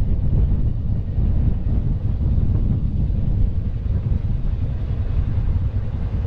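Quad bike on the move: a steady low rumble of wind buffeting the microphone mixed with the vehicle's engine and road noise.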